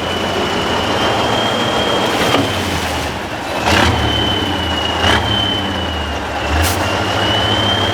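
Tatra 6x6 truck's diesel engine running under load, with a thin high whine over it that wavers slightly in pitch. Four sharp knocks come through at intervals of about a second and a half.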